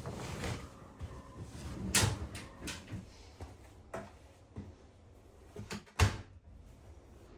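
Household handling knocks and clicks: a string of sharp knocks, the loudest about two seconds in and just after six seconds.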